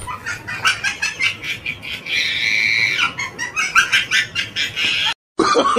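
Hamster squeaking: a quick run of short high squeaks, a held high squeal about two seconds in, then more short squeaks. The sound cuts out briefly near the end.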